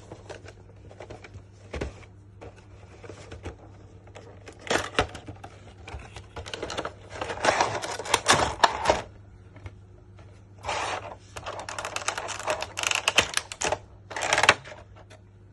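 A collectible figure's cardboard box and plastic packaging being handled and opened. Scattered clicks and taps give way to two stretches of dense crinkling and rustling, each about four seconds long, starting about five and about ten seconds in.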